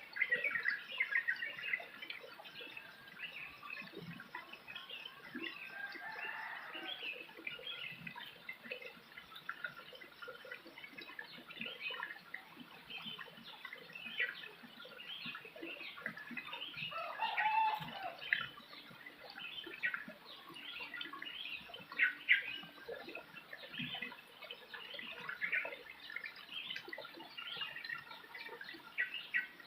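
Many small birds chirping and twittering without pause in a rural soundscape, with a couple of fuller, lower calls from chickens, about six seconds in and again at about seventeen seconds.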